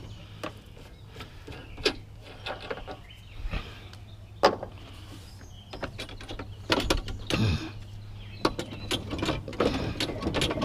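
Scattered knocks, clicks and rattles of things being handled and moved while loading a lawnmower, over a steady low hum.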